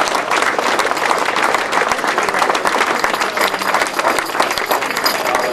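A crowd applauding, many hands clapping together without a break.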